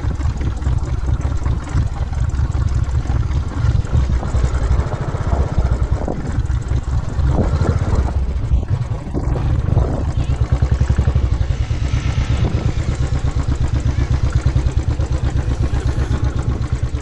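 Motorcycle engine running at low revs as the bike rolls slowly over rough off-road ground, a deep, steady exhaust beat that turns more evenly pulsing in the second half as the bike eases along.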